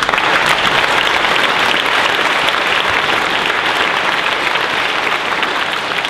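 Conference audience applauding, many hands clapping loudly and steadily, in response to the announcement of a second seven-day strike.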